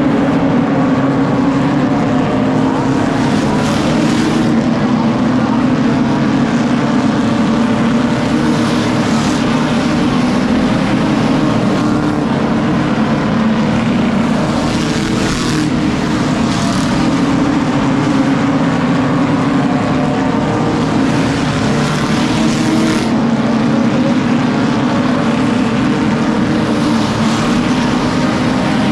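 A field of stock cars racing around a short oval, their engines running hard in a steady, loud din. Every few seconds one grows louder and brighter as it passes close by.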